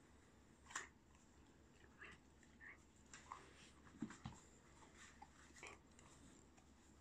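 White shepherd puppy chewing a dried cow Achilles tendon chew: faint, irregular crunches and clicks of its teeth on the hard chew, with a louder crunch about a second in and another about four seconds in.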